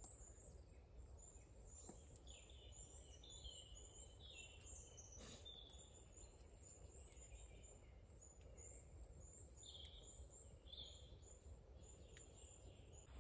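Near silence in woodland: faint birdsong, many short high chirps and warbling notes from small birds, over a steady low rumble of wind, with one or two faint clicks.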